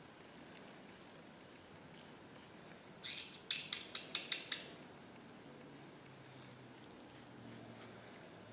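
A few faint, quick scratchy clicks, about six in a row between three and four and a half seconds in, from the twisted wire stem of a stainless steel brush being brushed with liquid flux.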